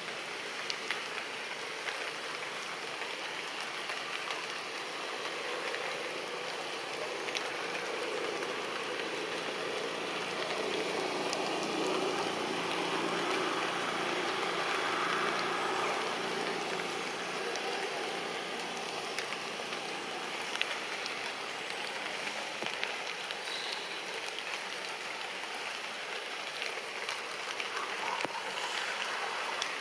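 Steady rushing outdoor background noise that swells a little in the middle, with a few faint ticks.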